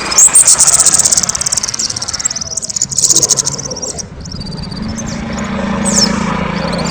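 Kemade songbird singing loudly: a very fast, high buzzy trill lasting about three seconds, then a run of short, separate high chirps.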